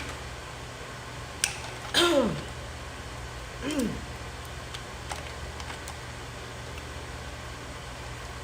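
Snow crab legs being broken open by hand: a few sharp cracks and clicks of shell. About two seconds in and again near four seconds come short voice-like sounds that slide down in pitch, the first and loudest starting with a crack.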